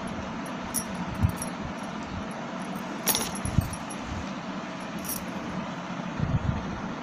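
Steady background noise with a few soft knocks and a couple of brief sharp clicks, like small objects being handled.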